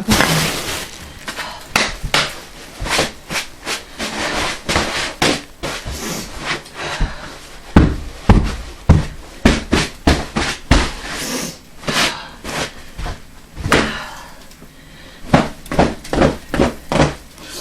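A long run of irregular knocks and thumps, one to three a second, with the heaviest low thumps about halfway through.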